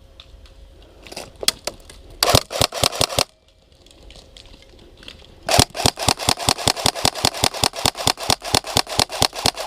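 Airsoft guns firing in rapid full-auto strings: a few single shots, a short burst about two seconds in, then a long, steady string of rapid shots from about five and a half seconds on.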